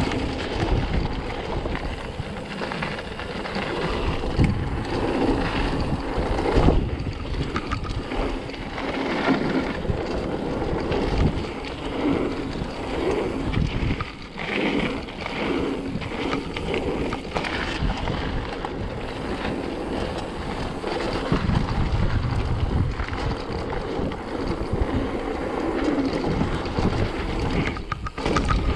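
Mountain bike riding a dirt downhill trail: wind buffeting the microphone over a steady rumble of tyres and frame, with scattered knocks from bumps.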